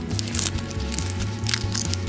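Background music with a steady bass line, over a few faint crinkles of papery garlic skin being peeled off a clove by gloved hands.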